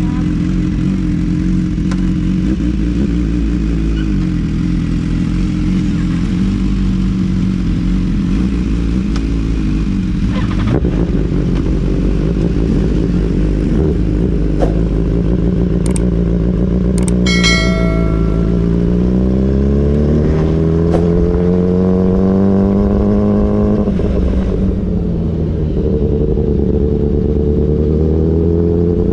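BMW S1000RR's inline-four, breathing through an Austin Racing GP1R full Inconel exhaust, idling steadily. About two-thirds through, the engine is revved in a slow climb and held for a few seconds, then drops back to idle. A brief high-pitched tone sounds just before the rev.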